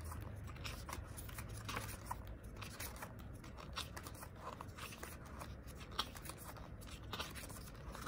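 Glossy pages of a K-pop album photobook turned by hand: a run of soft, irregular paper flicks and rustles, with a few sharper snaps as pages fall over.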